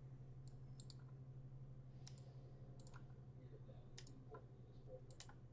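A handful of faint, scattered clicks from a computer mouse and keys as a list is selected, copied and pasted, over a steady low electrical hum.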